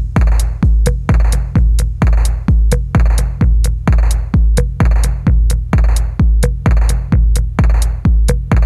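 Background electronic music with a steady drum-machine beat: a heavy kick about twice a second with crisp hi-hat ticks between.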